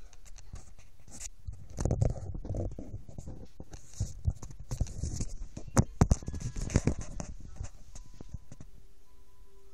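Handling noise on a phone's microphone as the phone is moved and turned: irregular rubbing rumbles with scattered clicks and knocks, the loudest at about two seconds and about six seconds in. It settles near the end, when a faint steady tone comes in.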